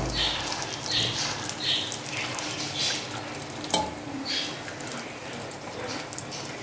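Gol gappa puris deep-frying in hot oil in an aluminium pot, sizzling steadily, the sizzle swelling each time a spoon splashes hot oil over them so they puff up. One sharp click a little past the middle.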